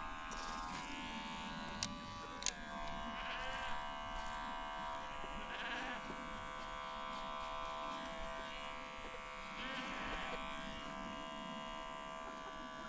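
Electric hair clippers buzzing steadily as they cut a man's hair. Two sharp clicks come about two seconds in, and the buzz settles at a slightly different pitch after the second one.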